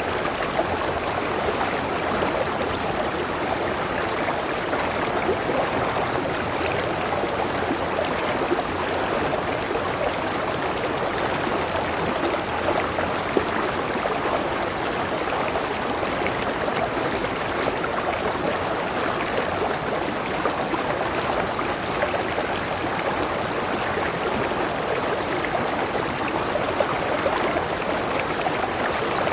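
Clear river with a small waterfall rushing and splashing steadily.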